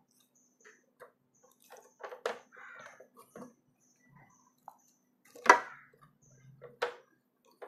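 Scattered plastic clicks and knocks from an RO water purifier's tubing and push-fit connectors being handled while the new membrane is fitted. The sharpest click comes about five and a half seconds in, another just before seven seconds.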